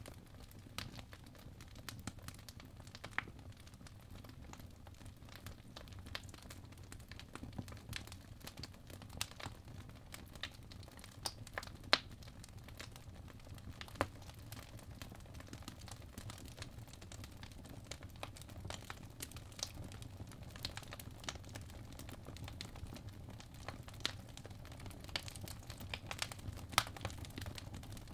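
Crackling fireplace ambience: a steady low rumble with small irregular pops and crackles scattered throughout, two of them stronger about twelve and fourteen seconds in.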